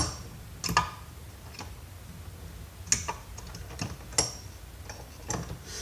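Sharp, irregular clicks and clanks of a hand tool prying at a metal bar inside a vacuum cleaner's plastic housing, about five in all.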